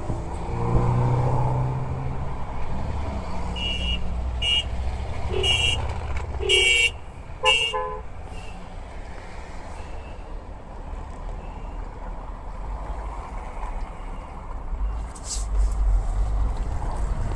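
Old cars driving past in a column, engines running, with five short car-horn toots roughly a second apart between about four and eight seconds in.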